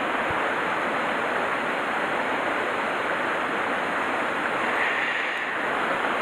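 Mountain stream running over rocks: a steady rush of water.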